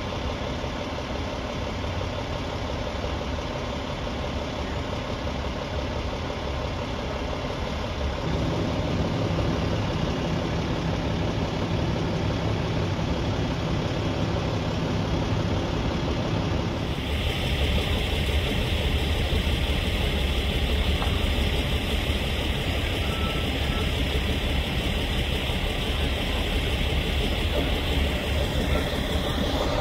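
Heavy engine idling steadily. A deeper hum joins about eight seconds in, and a little past halfway the sound changes abruptly and a steady hiss is added.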